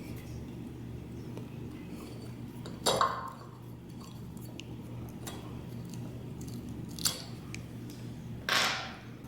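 Handling noises as ceiling fan parts and hardware are worked by hand: a sharp knock about three seconds in, a click around seven seconds and a short rustle near the end, over a steady low hum.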